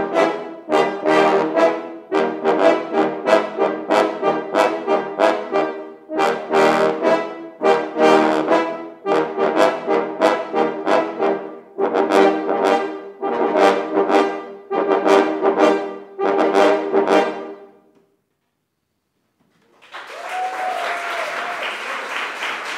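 Eight French horns playing together in a rhythm of short, accented chords, which stop about 18 seconds in. After a brief silence, the audience breaks into applause.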